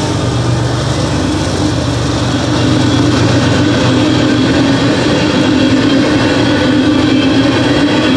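A freight train of hopper cars rolling steadily through a grade crossing, with a dense rumble and rattle of wheels on the rails. It grows a little louder about two and a half seconds in.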